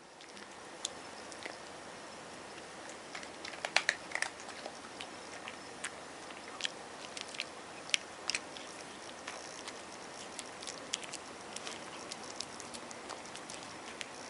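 An American Shorthair cat crunching small crispy cat treats, with irregular sharp crunches and a cluster of louder ones about four seconds in.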